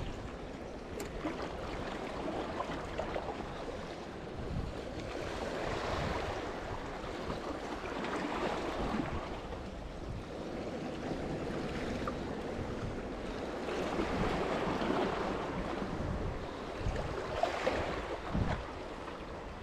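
Small sea waves washing against the breakwater rocks, swelling and easing every few seconds, with wind rumbling on the microphone.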